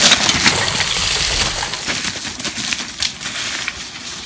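Mountain bike tyres crunching and crackling over dry bark and leaf litter on a dirt trail as the bike passes close by, loudest at the start and fading away.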